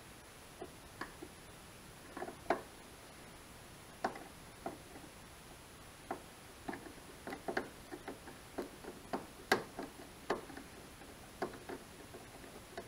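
Screwdriver working the headlight's top mounting screw, giving irregular light clicks and taps of metal on metal as the screw is turned out. The clicks come faster and closer together in the second half.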